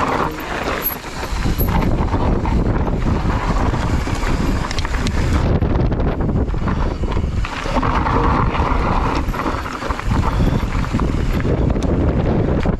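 Strong wind buffeting the microphone, a steady low rumble with gusts coming and going.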